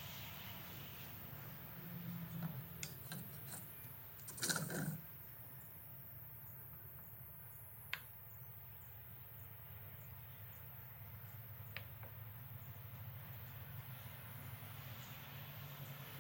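Quiet handling noises around a switched-off electric hand planer: a short scrape about four and a half seconds in as a steel guide rod is slid through it, and a few light knocks and clicks as small wooden blocks are set on the table, over a faint steady hum.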